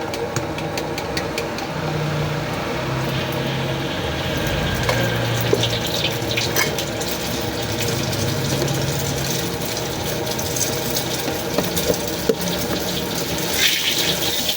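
Steady rushing noise with a low hum under it, broken by a few sharp clinks, typical of a street-food wok stall at work.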